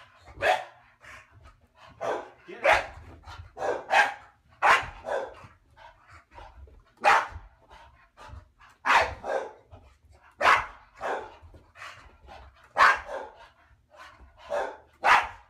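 Small white dog barking over and over: short, sharp barks every second or two, some in quick pairs.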